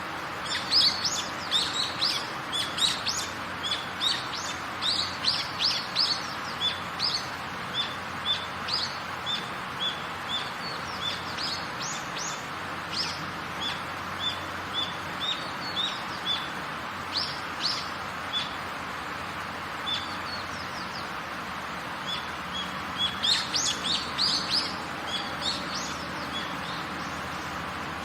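Steady heavy rain with birds chirping over it: many quick, high chirps through the first dozen seconds, then scattered ones, and another busy run of chirps about 23 seconds in.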